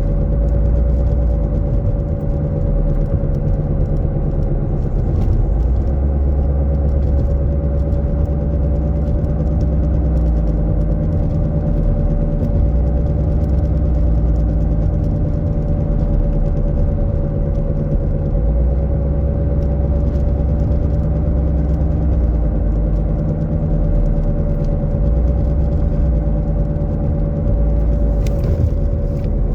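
Worn wheel bearing on a 2009 Mazda 3 howling with a steady, wavering tone over road rumble, heard from inside the cabin at about 40 mph. The howl persists with a new CV axle fitted, pointing to the bearing.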